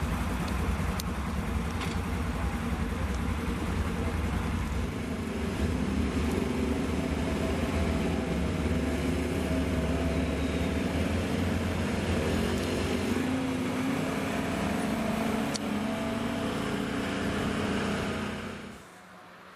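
Side-by-side UTV engines running as several machines drive off across packed snow. Their engine note rises and falls briefly partway through. The sound drops away abruptly near the end.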